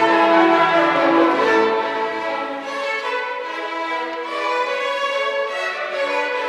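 Youth orchestra of strings and French horns playing classical music, with the violins to the fore, in sustained, held notes.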